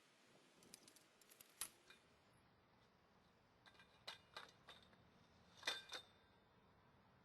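Faint scattered clicks and clinks of metal tent-frame poles and pins being handled and fitted, in a few small clusters, the loudest with a short metallic ring about six seconds in.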